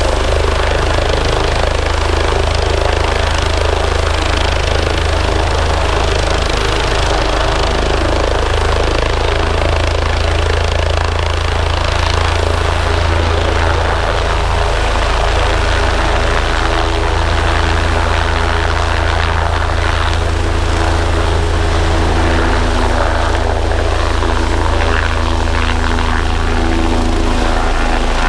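Air ambulance helicopter running on the ground: a steady low rotor beat under a high turbine whine. The whine rises in pitch about halfway through as power comes up for lift-off.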